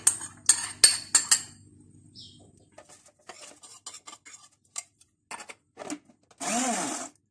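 Yogurt and fried onions spooned into a plastic blender jar, with clicks, knocks and scrapes of the spoon against the jar. Near the end the blender motor runs in one short pulse, its pitch rising and then falling as it spins up and stops, to grind them into a paste.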